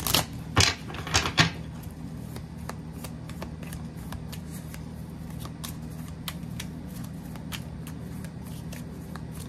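A deck of oracle cards being shuffled by hand. A few louder card slaps come in the first second and a half, then a run of soft, irregular card clicks.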